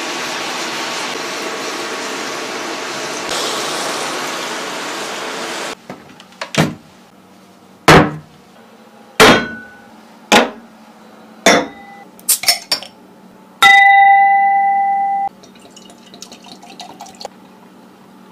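A steady hiss for the first few seconds, then a run of sharp glass clinks and knocks about a second apart. Glass rings clearly for just over a second after the knocks, and beer is poured faintly into a glass near the end.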